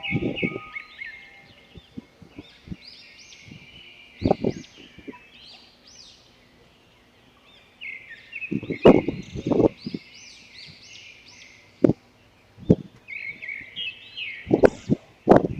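Small birds chirping over and over in quick arched notes, with irregular low thumps that break in now and then, loudest near the middle and the end. The sound drops out briefly a little before halfway.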